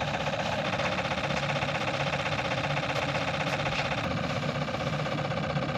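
Small gas engine of an ice auger running steadily, a dense even buzz; the owner says a part on the auger has worked loose again.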